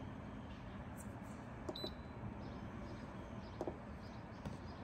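Instant Pot control panel giving one short, high beep about two seconds in as a button is pressed, with a few faint clicks of the buttons.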